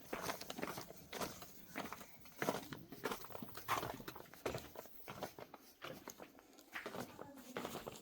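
Footsteps: irregular steps, roughly one or two a second.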